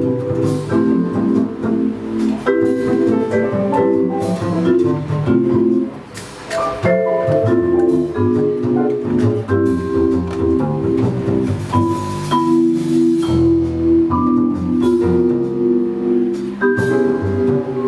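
Live jazz: a vibraphone played with mallets, struck chords and single-note lines ringing on, over plucked double bass and drums.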